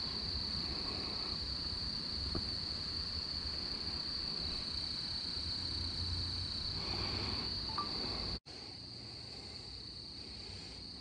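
Steady, high-pitched chorus of insects, one unbroken buzzing trill, over low rumbling noise. The sound breaks off for an instant about eight seconds in, and the rumble is weaker after that.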